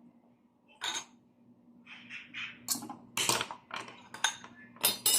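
Shells clinking and clattering against each other and a plate while shellfish is being eaten, in a string of short, sharp clicks.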